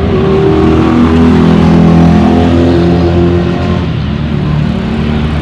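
A motor running loudly, a stack of steady tones that shifts in pitch a few times and drops away at about four seconds.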